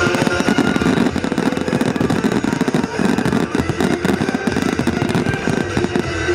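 Fireworks going off overhead: a dense, continuous run of sharp bangs and crackles from bursting aerial shells.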